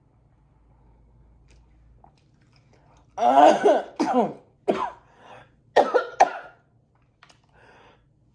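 A woman coughing hard while choking on food she tried to swallow while talking: quiet at first, then a burst of about six coughs starting about three seconds in, the first the longest.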